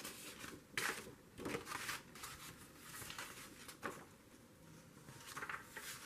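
Faint rustles and soft taps of paper sheets being handled and shifted on a tabletop, a handful of short brushes spread through.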